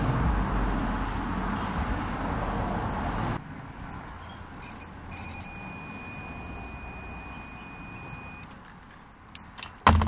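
Digital multimeter's continuity beep: a steady high tone lasting about three and a half seconds in the middle, the sign of a closed circuit through the wire being tested. Before it, a steady rushing noise cuts off abruptly, and a sharp knock comes near the end.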